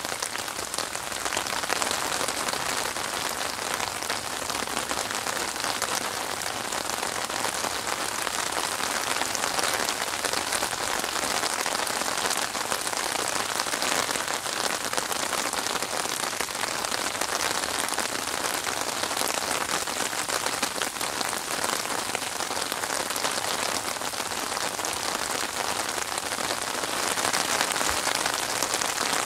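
Steady rain falling on open water: a dense, even hiss of countless drops striking the surface.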